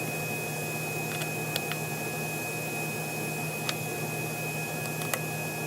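Steady electrical hum and hiss with a faint, thin high-pitched whine, broken by a few faint, light clicks.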